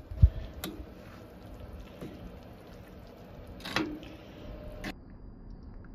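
A metal spoon stirring thick chili in a cast-iron Dutch oven, with a few clinks and scrapes of the spoon against the pot, the longest about two-thirds of the way through. A single low thump right at the start is the loudest sound.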